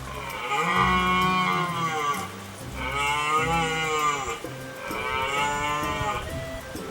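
Deer calling: three long, drawn-out, moo-like calls, each rising and then falling in pitch, over faint background music.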